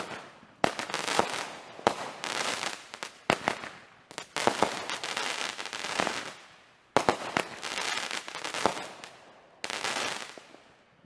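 Fireworks going off: a string of sharp bangs, one every second or two, each trailing off in crackling.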